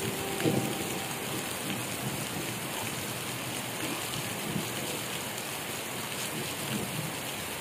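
Heavy tropical rain pouring down onto the tracks and ground, a steady even hiss.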